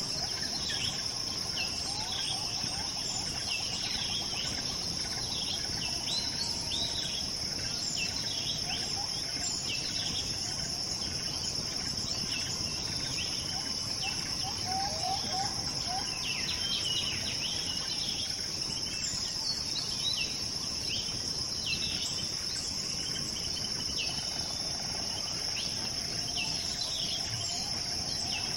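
Nature ambience: a steady high insect drone, typical of crickets, runs throughout. Many short bird chirps sound over it.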